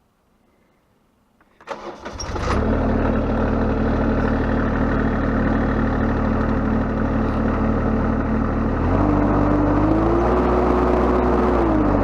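Sunward SWE18U mini excavator engine cranked and started about two seconds in, then running steadily at idle. About nine seconds in the revs step up and hold, then drop back near the end.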